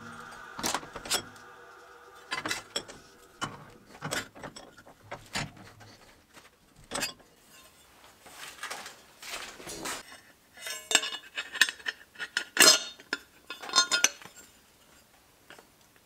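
Steel sheet-metal bracket being handled on a steel bench vise: scattered metallic clinks and knocks, with a busier run of them in the last third.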